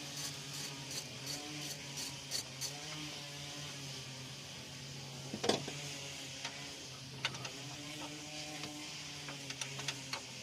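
Ratchet wrench clicking in evenly paced runs while the bolts holding a car's side mirror are loosened, with one sharp metallic knock about halfway and a few more clicks near the end. A steady low hum runs underneath.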